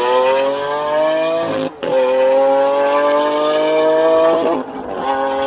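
Lamborghini Aventador's V12 accelerating hard away, its note climbing steadily through the gears. There are two upshifts, about two seconds in and near the end, each a brief break before the pitch starts lower and rises again.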